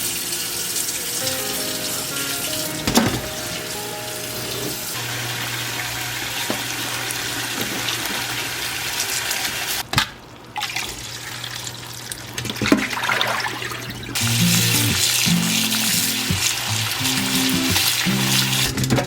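Water running from a tap into a sink, under soft background music. The water stops briefly about halfway through, then runs again more strongly.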